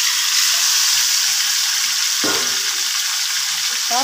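Marinated chicken sizzling in hot oil in a wok: a steady frying hiss.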